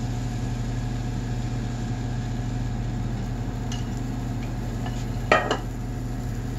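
A ceramic plate with a wire whisk on it is set down with a short clatter about five seconds in, over a steady low hum. A few faint ticks come just before it.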